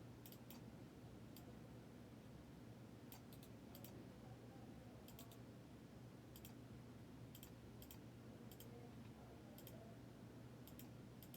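Faint clicking: about a dozen soft, sharp clicks, several in quick pairs, spaced irregularly over a quiet, steady low room hum.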